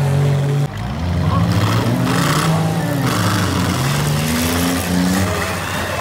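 Demolition derby cars' engines running and revving, several at once, their pitch rising and falling. The sound dips sharply for an instant a little over half a second in.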